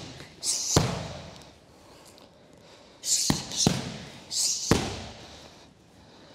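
Gloved punches and a kick smacking into Muay Thai pads, each with a sharp hissing exhale. One strike lands about a second in, then a quick hook, cross and switch kick land between about three and five seconds in, the sounds ringing briefly off the gym walls.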